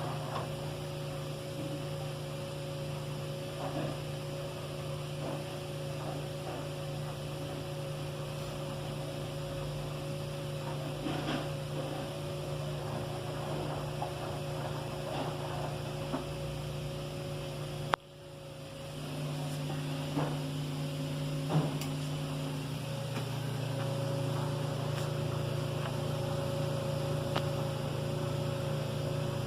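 Electrolux washing machine running with a steady motor hum and a few light ticks. About two-thirds of the way through, a sharp click cuts the sound briefly, then the motor starts again and builds back up.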